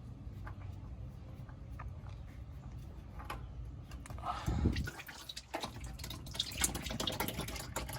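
Engine oil dripping and trickling from a loosened spin-on oil filter as it is unscrewed by hand, with scattered small clicks and a low knock about four and a half seconds in. The ticking grows denser near the end.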